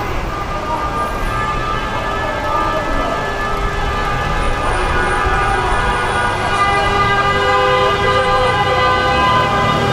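City street traffic: a steady low rumble of motor vehicles with a continuous, unwavering ringing tone over it that grows slightly louder.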